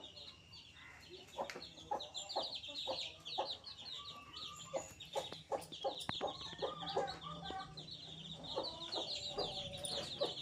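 Baby chicks peeping, many short high chirps overlapping in a constant chatter.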